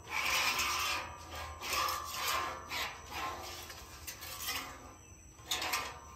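Spatula scraping across an oiled flat-top griddle in a series of back-and-forth strokes, spreading a heavy pool of seasoning oil over the cooking surface, with a short pause near the end. This is the over-oiling seasoning mistake.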